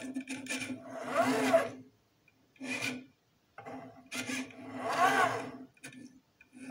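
LFO-driven drawing machine's pen carriage sliding along its rail, a rasping, rubbing sound with a whine that rises and falls in pitch over each sweep. It moves in several separate passes with short silent pauses between them.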